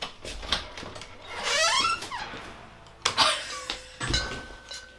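A door squeaking with a wavering, rising squeal, a few clicks, then shutting with a low thump about four seconds in.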